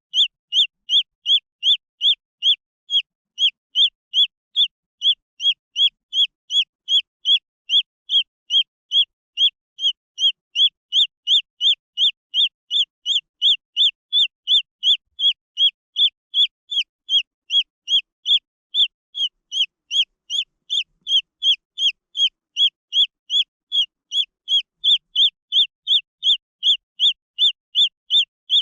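Green junglefowl chick peeping without a break: short, high peeps at an even pace of about two and a half a second, each sliding down in pitch.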